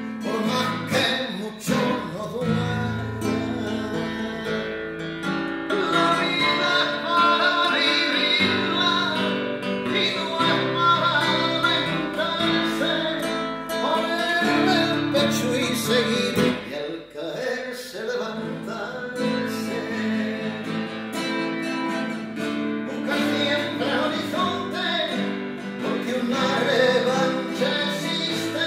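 Nylon-string classical guitar with a pickup, played through a small combo guitar amplifier: a continuous strummed and picked song accompaniment.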